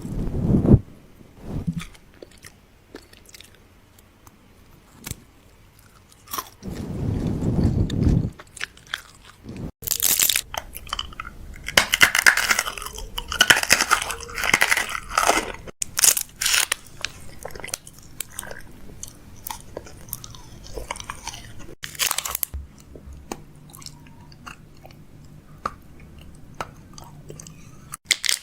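Crisp crunching and clicking close to the microphone in irregular bursts, densest around the middle, with a dull low rumble shortly before.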